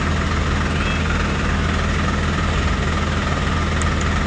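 Hino FG 235 JJ truck's diesel engine idling with a steady low rumble.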